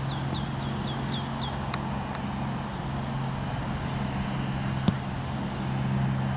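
A steady low mechanical hum, with a bird calling a quick run of short descending chirps, about four a second, in the first second and a half. A single sharp click comes about five seconds in.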